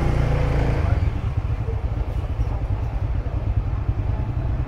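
Motorbike street traffic running, a steady low rumble.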